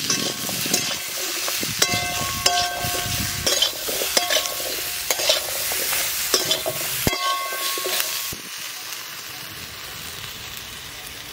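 Flat metal spatula stirring potato, brinjal and drumstick pieces frying in mustard oil in a metal kadai, scraping and clinking against the pan with short ringing tones over a steady sizzle. About eight seconds in the stirring stops and only a quieter sizzle remains.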